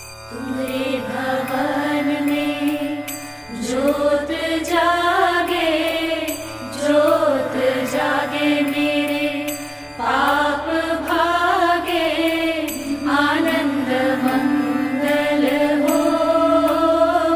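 Background music: a devotional mantra sung by a single voice in long melodic phrases of about three seconds each.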